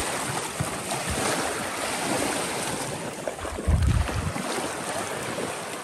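Shallow lake water lapping and splashing around wading legs and feet, with wind on the microphone. A brief low rumble comes about two-thirds of the way through.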